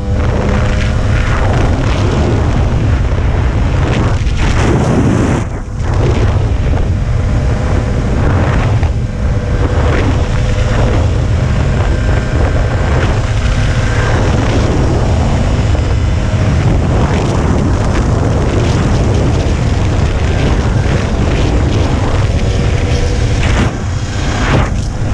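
Dirt bike engine running at speed under heavy wind noise on a helmet-mounted microphone, with a brief drop in sound about five and a half seconds in.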